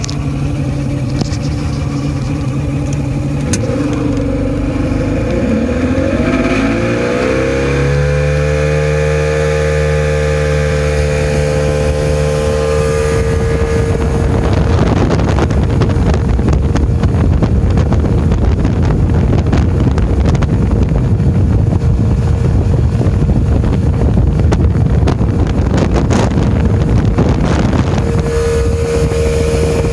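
Older Mercury outboard motor, running on a newly replaced switch box, throttled up to pull the boat onto plane: its pitch rises about seven seconds in and then holds steady. From about halfway through, a loud rush of wind and water grows over the engine.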